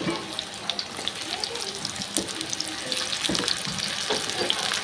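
Hot oil sizzling and crackling around halved raw mangoes frying in a pan, with a few soft knocks as more pieces are set in.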